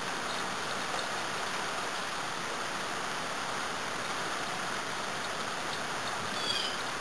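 Light rain falling steadily, an even hiss of drops with no breaks. A brief high chirp sounds near the end.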